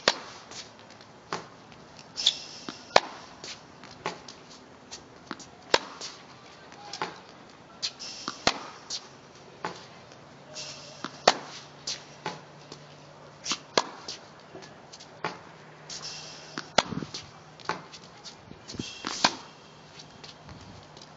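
Tennis balls being hit with a racket and bouncing on a hard court: a steady series of sharp pops about one to one and a half seconds apart, some much louder than others, with a few brief scuffing hisses between them.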